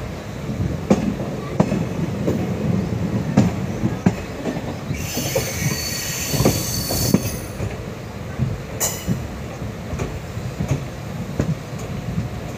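Passenger train coaches running along the track, heard from a coach window: irregular knocks and clicks of the wheels over the rails, with a shrill wheel squeal from about five to seven seconds in as the train takes a curve, and a short squeal again about two seconds later.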